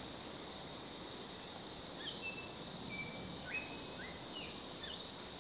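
Steady high-pitched insect chorus, with a bird calling in a string of short whistled notes in the second half.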